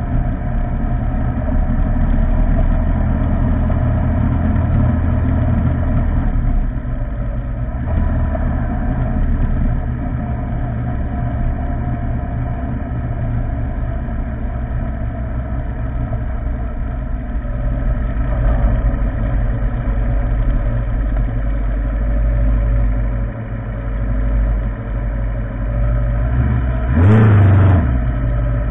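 Motorcycle engine running steadily at low speed, picked up close by a camera mounted on the bike. Near the end there is a short, louder burst with a rise and fall in pitch.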